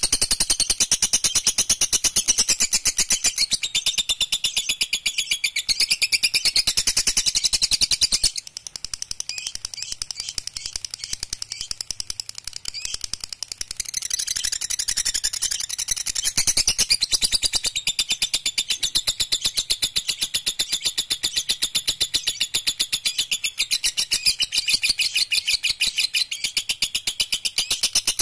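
Lovebird singing a long 'ngekek': a very rapid, high-pitched chattering trill kept up without a break. It drops quieter for several seconds about a third of the way in, then comes back at full strength.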